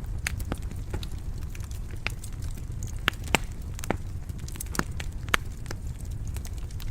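Wood fire burning in a stone fireplace: a steady low rumble with sharp, irregular crackles and pops, several louder pops in the middle.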